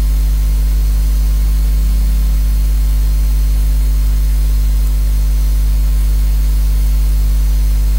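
A loud, steady low hum with several steady higher tones over it, unchanging throughout: background hum picked up by the microphone.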